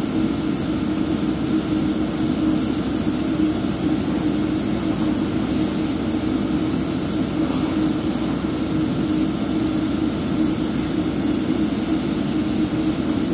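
Steady motor drone with an airy hiss from running airbrush painting equipment, even and unchanging throughout.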